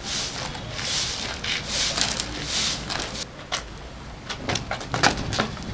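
Short-handled broom sweeping bare earth: a run of swishes, nearly one a second, then a scatter of sharp clicks and knocks.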